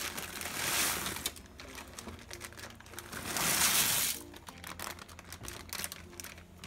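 Crinkling plastic bag and dry egg noodles sliding and rattling out of it into a pot of boiling water, in two pours about three seconds apart.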